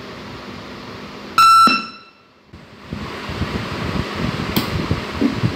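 A single short, loud, high-pitched tone from the PA speakers of an Ahuja SSB-45M amplifier as a microphone is plugged into its input. The tone lasts about a third of a second and then cuts off. After a moment of near quiet, the hiss of the system comes back, with one sharp click a few seconds later.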